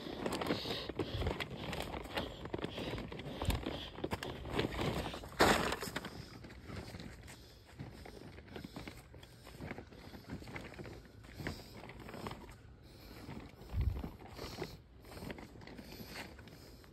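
Footsteps of someone walking on a dirt trail with leaf litter and twigs: an uneven series of soft steps, louder in the first few seconds and fainter after.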